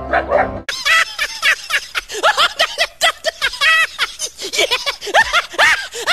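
Rapid high-pitched giggling: a fast string of short, rising-and-falling laughs that starts suddenly about half a second in, after a brief tail of music, and keeps going without a break.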